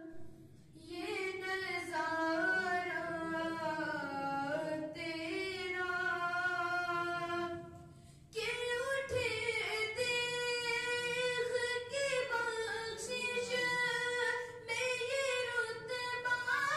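A boy singing a naat solo and unaccompanied into a handheld microphone, holding long notes with ornamented glides in pitch. After a short break about eight seconds in, he comes back in at a clearly higher pitch.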